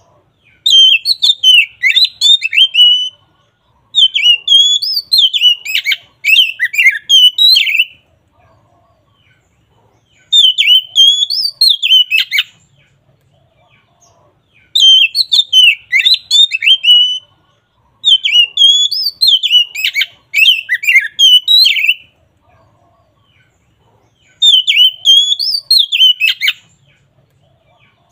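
Oriental magpie-robin (kacer) singing in full, loud voice: rapid warbling, whistled phrases of two to three seconds, each followed by a short pause, repeated about eight times.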